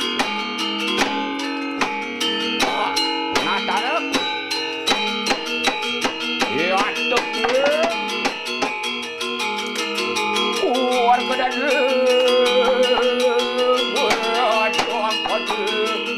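Balinese gender wayang, bronze metallophones struck with mallets, playing a fast, dense ringing figuration. From about three seconds in a voice glides in and out over the music, and holds one long wavering note in the middle.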